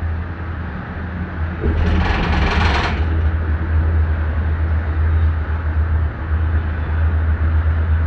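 Steady low rumble inside a moving Disney Skyliner gondola cabin riding along its cable, with a brief mechanical rattle about two seconds in that lasts about a second.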